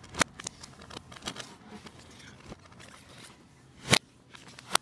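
Handling of plastic DVD cases: scattered clicks and light scraping, with a louder clack about four seconds in and another just before the end. The audio runs in reverse, so each clack swells up and then cuts off suddenly.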